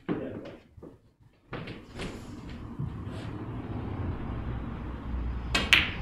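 A snooker cue tip striking the cue ball, followed a moment later by the cue ball clicking into an object ball: two sharp clicks close together near the end, over a low steady hum.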